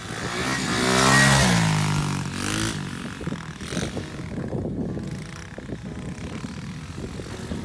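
Tao Tao pit bike's small single-cylinder engine revving as it rides past: its pitch climbs to the loudest point about a second in, then drops as it moves away, and it runs on more faintly.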